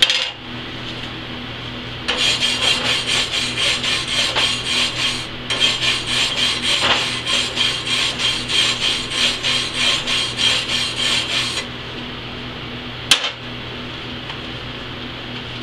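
Hand wire brush scrubbed back and forth over a freshly chipped flux-core weld bead on steel plate, in quick rasping strokes for about ten seconds, clearing the last slag before the next cover-pass bead. A brief knock at the start and a single sharp click about thirteen seconds in.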